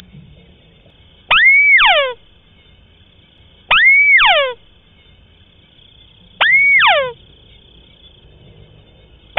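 White-browed crake calling three times, about two and a half seconds apart. Each call is a short note that rises and arches over, then falls steeply in pitch, with a quick falling series of notes overlapping it.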